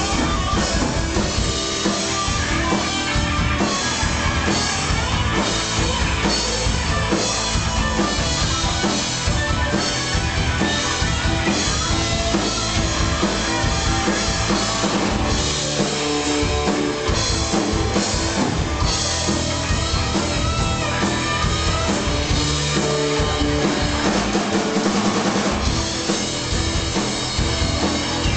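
Live rock band playing an instrumental passage: electric guitar over a steady drum kit beat, with no singing.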